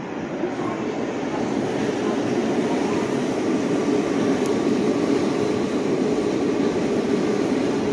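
Nagoya Municipal Subway Tsurumai Line train running along the track, a steady rumble of wheels and traction motors that grows a little louder over the first couple of seconds.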